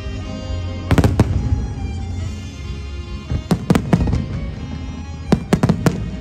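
Aerial firework shells bursting in clusters of sharp bangs: three about a second in, four around three and a half to four seconds, and four more near the end, over music playing.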